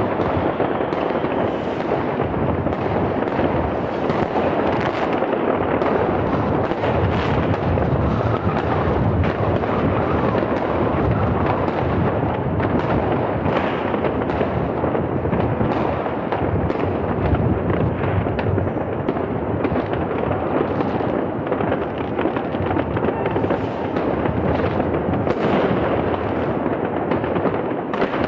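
Dense, unbroken New Year's Eve barrage of fireworks: rockets and firecrackers going off everywhere at once, countless bangs and crackles merging into a steady din, with sharper nearer bangs standing out now and then.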